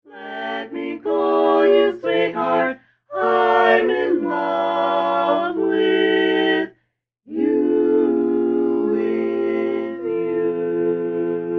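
Women's voices singing barbershop-style a cappella harmony in three phrases, the last a long held chord.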